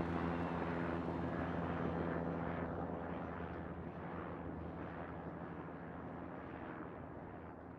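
Steady low hum with a few held low tones under a hiss, slowly fading out.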